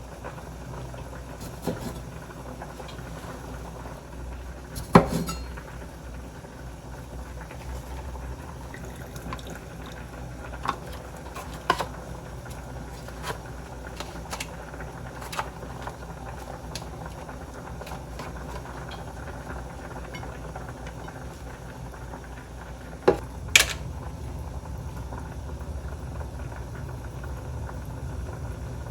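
Dishes and cutlery clinking and knocking now and then, with the sharpest knock about five seconds in and a pair of knocks near the end. A steady low hum runs underneath.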